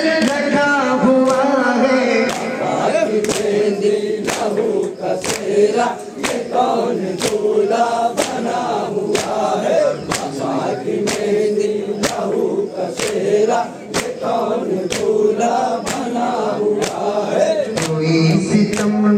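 Men chanting a Muharram nauha in chorus, with the sharp hand slaps of matam chest-beating keeping a steady beat about twice a second.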